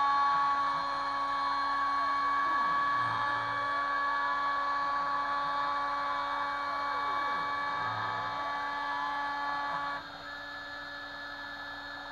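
Kress FME 800 spindle on a Stepcraft 2/420 CNC router running at high speed with a steady whine while milling aluminium, with the machine's stepper motors rising and falling in pitch as the axes speed up and slow down. About ten seconds in, the strongest whining tone stops and the sound becomes quieter.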